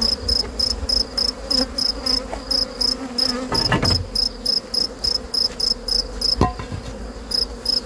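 A cricket chirping steadily, about four to five high chirps a second, over the low steady hum of honeybees at an open hive. Two knocks as hive parts are handled, one a little before halfway and one past three-quarters.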